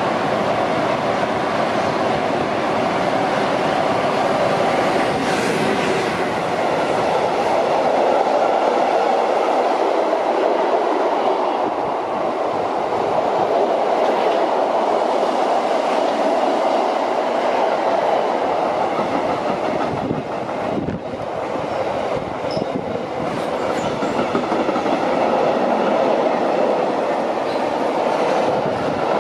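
A train running past on the rails, a loud, steady noise of wheels on track.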